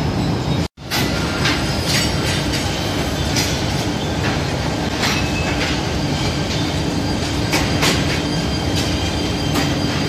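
Steady din of a bicycle frame workshop: machinery running with a constant low hum, broken by irregular short sharp clicks and hisses every second or so. The sound cuts out for an instant just under a second in.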